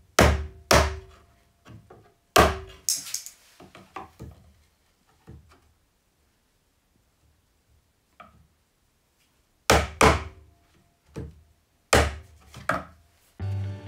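About seven sharp knocks in small groups with pauses between them, as the plastic glazing shims under a wooden mount are trimmed off flush.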